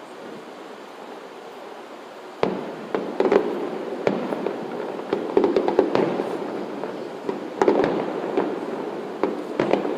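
Aerial fireworks display: after a couple of seconds of low background noise, a sharp bang about two and a half seconds in starts a run of repeated booms and crackling bursts, several of them echoing.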